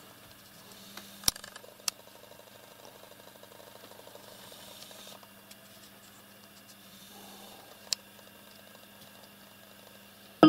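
Quiet room tone with a faint steady hum, broken by three short sharp clicks: the loudest about a second in, another soon after, and a third near the end.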